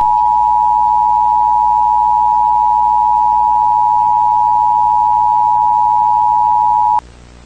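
The Emergency Alert System's two-tone attention signal, 853 Hz and 960 Hz sounded together. It is loud and steady for about seven seconds, then cuts off suddenly near the end, leaving only faint hiss.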